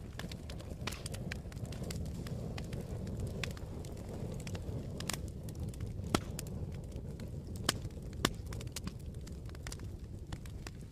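Log fire in a fireplace crackling, with scattered sharp pops over a steady low rumble of flames; a few louder pops come in the second half.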